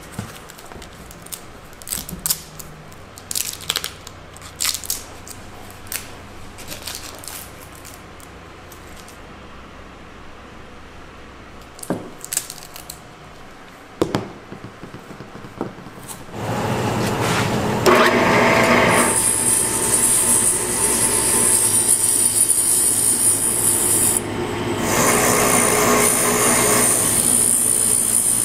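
Scattered clicks and rustles of hands handling a tape- and foam-wrapped piece on a workbench. About sixteen seconds in, a bench grinding or polishing machine's motor starts and runs loudly and steadily, with a high whine that dips briefly a few seconds before the end.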